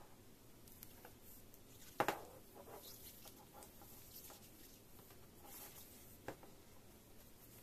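Faint rustling and handling noise of cotton-gloved hands working an earphone cable, with a sharp tap about two seconds in and a lighter one a little after six seconds.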